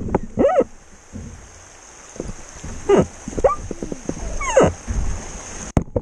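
Several short excited whoops and yells, their pitch swooping up and down, over the hiss of rushing river water as a jon boat runs a riffle; a sharp knock near the end.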